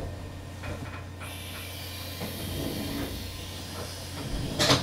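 A long, hard draw on a Kumiho A9 rebuildable dripping atomizer fired on a mechanical mod: a steady airy hiss from about a second in. It ends with a short, louder breath near the end as the vapour is pulled into the lungs.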